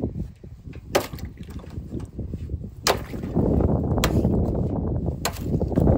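A hatchet chopping the ice in a frozen galvanized stock-tank water trough: about five sharp blows, roughly one a second, breaking through the ice and splashing up water from the hole beneath. A rough low rumble grows louder under the blows from about three seconds in.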